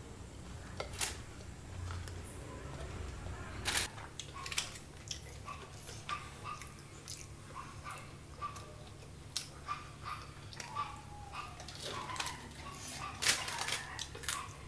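Close-miked eating sounds: a person chewing, biting and lip-smacking pieces of Indian barbecue food, with irregular wet mouth clicks over a faint low hum.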